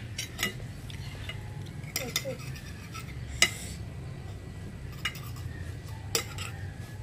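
Metal spoon clinking and scraping against a glass plate as rice and egg are scooped up, in about seven short sharp clinks, the loudest about three and a half seconds in.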